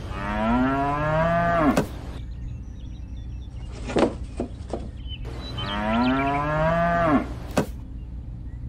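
Cow mooing twice, each call about two seconds long and dropping in pitch at its end. A few sharp clicks fall between and just after the calls.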